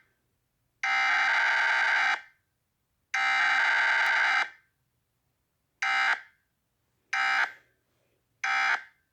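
Harsh, buzzing electronic emergency-alert tone sounding in a pattern: two long blasts of about a second and a half, then three short ones.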